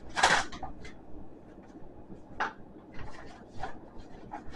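Paper rustling in short bursts as mail is handled: an envelope opened and a letter unfolded, the loudest burst just after the start.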